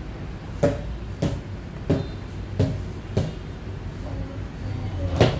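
A run of sharp knocks or taps, about one every 0.6 seconds, five in a row, then a pause and a louder one near the end, over a low steady hum.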